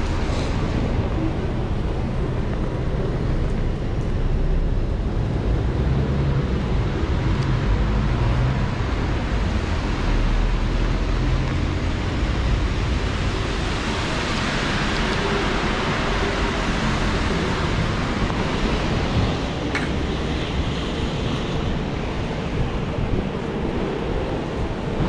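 Heavy rain on a city street: a steady hiss over a low rumble of wind on the microphone, the hiss growing louder about halfway through.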